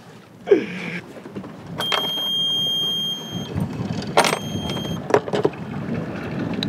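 Yanmar marine diesel engine panel: the alarm buzzer sounds a high steady tone for about a second and a half as the key is switched on. Then the engine runs low and steady, with a few sharp clicks.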